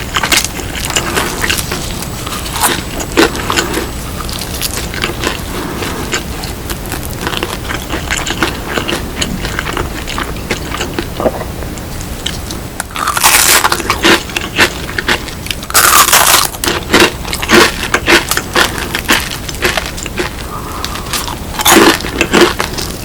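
Close-up eating of crispy seasoned fried chicken: crackling bites and chewing, with three louder crunches a little past halfway, around two-thirds of the way, and near the end.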